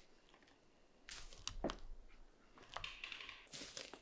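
Straw broom brushing over flexible bitumen roof shingles in several short scraping strokes, starting about a second in.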